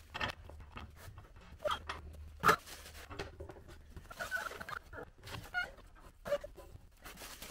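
Scattered light clicks and taps of bolts being fitted by hand into the bead-lock ring of a Sherp tire, with one sharper knock about two and a half seconds in.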